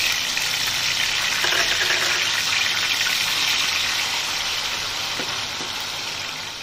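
Freshly chopped tomatoes sizzling in hot vegetable oil in a kadai just after being added: a loud, steady frying hiss that slowly dies down.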